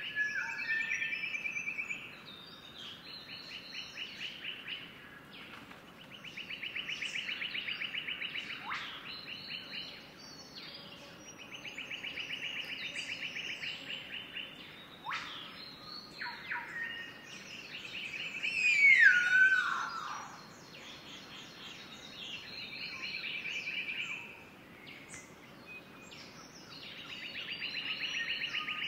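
Birds calling. A fast trill lasting two to three seconds repeats about every five seconds among scattered short chirps. About nineteen seconds in, one loud call falls in pitch, the loudest sound.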